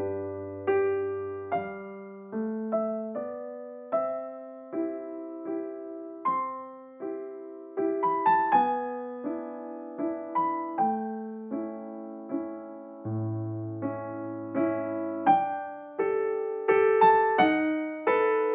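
Soft solo piano background music: a slow, gentle melody of single struck notes, each decaying, over occasional held low bass notes.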